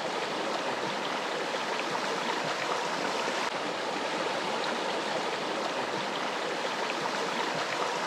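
Steady rush of running water, like a stream flowing, with faint small ticks scattered through it.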